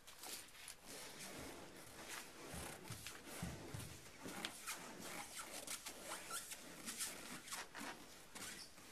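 Rough scraping and rustling as a homemade boat hull is shoved along over tires and tarps, with many small crackles and creaks throughout.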